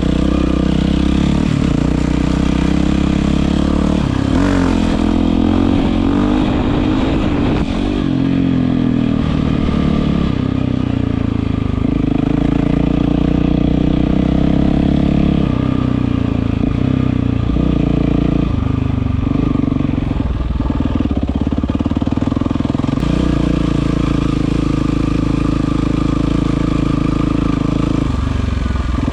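Yamaha WR450F's single-cylinder four-stroke engine running through an Akrapovic exhaust, the revs rising and falling for a few seconds early on and again briefly past the middle, otherwise holding fairly steady.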